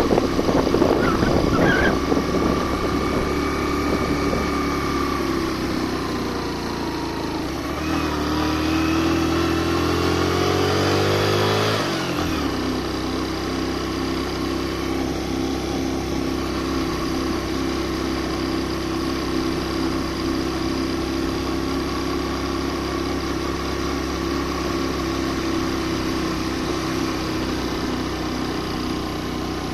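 Suzuki GN 125's single-cylinder four-stroke engine pulling a rider and passenger up a steep dirt trail. The revs climb steadily from about eight seconds in, drop sharply about four seconds later, then the engine runs at a steady pitch.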